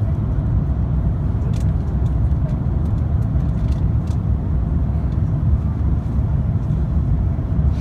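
Steady low rumble inside the cabin of an Airbus A350-900: its Rolls-Royce Trent XWB engines and the airflow over the wing, with the flaps extended for the approach. A faint steady hum sits above the rumble.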